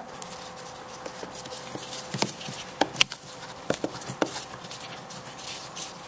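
Plastic brake fluid reservoir cap being handled and screwed back on: scattered light clicks and scrapes, over a steady faint hum.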